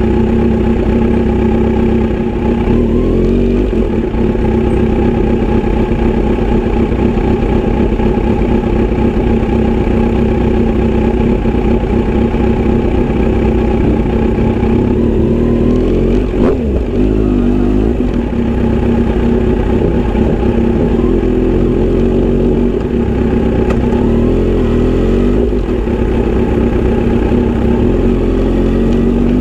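Inline-four motorcycle engine and exhaust running steadily under way, with the pitch dipping and rising briefly about three seconds in and again about sixteen seconds in as the throttle changes.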